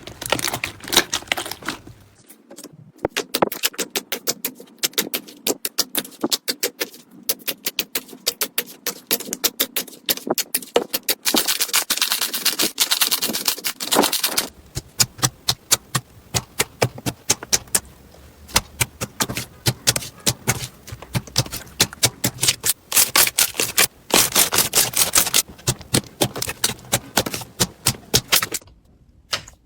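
Slime being handled and squeezed, making rapid sticky clicks and pops, with denser crackling bursts about twelve seconds in and again near twenty-four seconds.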